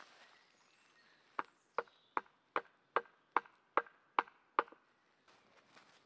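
Hammering by hand: nine sharp, evenly spaced knocks, about two and a half a second, each with a short ringing tone.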